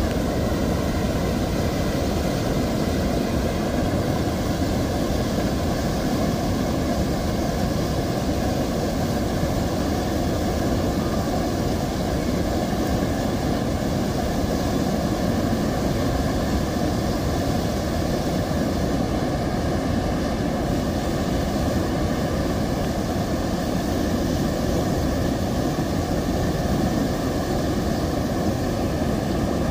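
Steady, unbroken rush of flowing river water, deep and even throughout.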